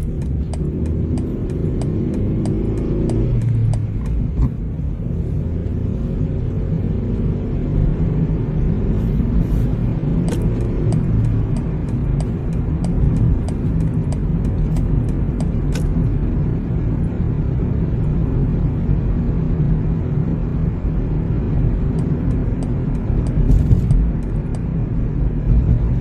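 Car driving, a steady low road and engine rumble. A turn-signal indicator ticks in several stretches, about three clicks a second.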